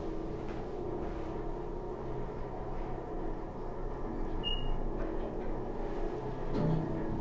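Otis hydraulic elevator travelling up, heard from inside the car: a steady hum of the pump motor and car. A short high beep sounds about four and a half seconds in, and a light knock near the end.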